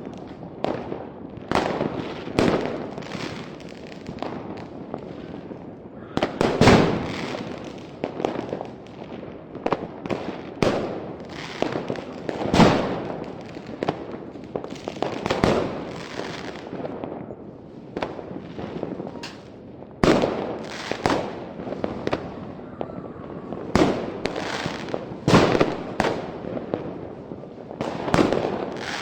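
Fireworks display: aerial shells bursting with sharp bangs one after another, irregularly about every second, each followed by a rolling rumble and crackle, the bursts overlapping in a continuous barrage.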